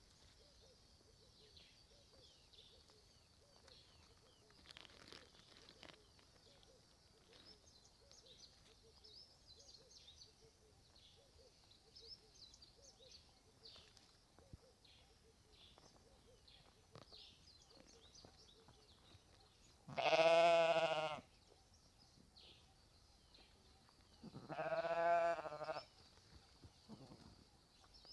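Sheep bleating twice: a loud, quavering bleat about two-thirds of the way in, then a second, quieter one a few seconds later. Faint high chirping continues in the background throughout.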